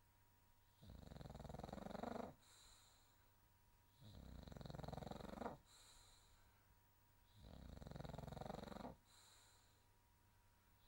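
A sleeping pet snoring: three snores about three seconds apart, each lasting about a second and a half and followed by a short, soft hiss.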